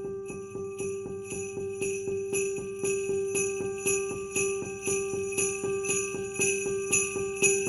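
Festive title music: sleigh bells shaken in a steady rhythm, about four or five shakes a second, over a held note, slowly growing louder.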